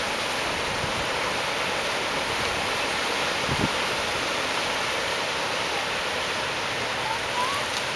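Ocean surf breaking, a steady wash of noise. There is a single low thump about halfway through.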